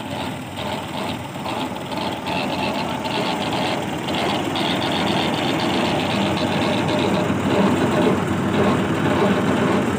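Tractor diesel engine running steadily at the belt pulley that drives a thresher, with a fine rapid knock; the sound grows louder through the first half and then holds.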